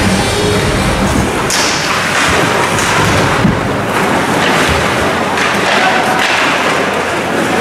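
Ice hockey play in a rink: skates scraping the ice, with sticks and the puck knocking and thudding against the boards over a steady crowd and hall noise.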